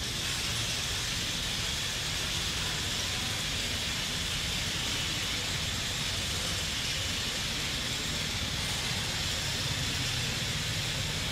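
Steady outdoor background noise: a constant hiss with a low rumble underneath, unchanging throughout, with no distinct calls or knocks.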